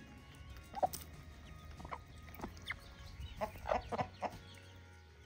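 A flock of hens clucking in short, scattered calls, with a quick run of clucks about three and a half seconds in.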